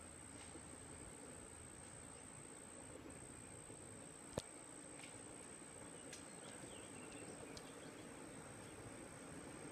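Faint outdoor ambience: an even hiss under a steady high-pitched trill, with one sharp click about four and a half seconds in.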